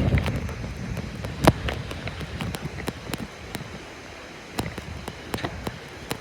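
Scattered sharp clicks and knocks at irregular intervals, the loudest about one and a half seconds in, over a low rumble that fades out after the first second.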